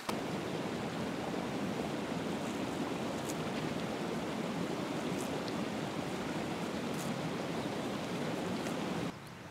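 Steady rushing of a stream's running water, even throughout, with a few faint ticks over it; it cuts off abruptly near the end.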